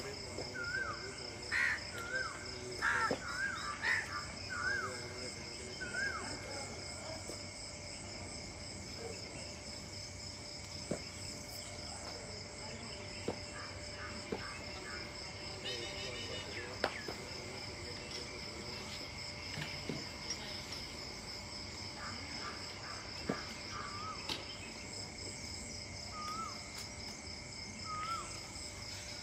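Steady shrill chorus of crickets or similar insects, with a bird's short hooked chirps repeating about once a second over the first few seconds and again near the end, and scattered faint knocks.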